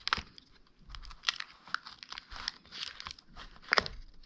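Plastic film crinkling, with irregular small clicks and taps, as a replacement MacBook Pro battery pack is handled and pressed into place in the laptop's case. Two sharper knocks stand out, one just after the start and one near the end.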